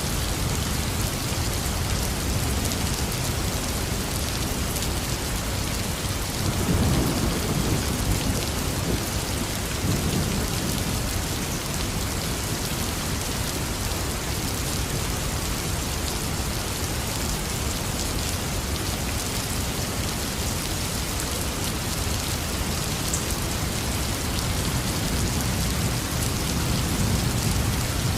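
Heavy, steady rain pouring down, with low rolls of thunder rumbling about a third of the way in and again near the end.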